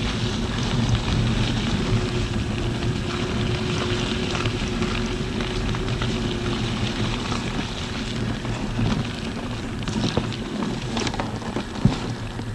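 Zero DSR electric motorcycle on the move: a steady rush of wind and road noise, with a faint steady motor whine for a few seconds and a few sharp ticks near the end.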